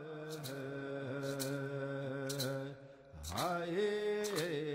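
A man chanting in a Native American style: a long held low note, then a slide up to a higher held note about three seconds in. Short sharp strokes fall about once a second beneath the chant.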